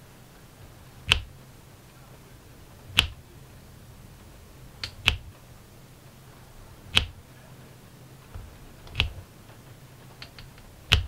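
Diamond-painting drill pen pressing square drills into place on the canvas, one sharp click about every two seconds, six in all, with a few fainter ticks between them.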